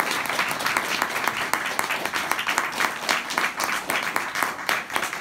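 Audience applauding: a steady patter of many hand claps.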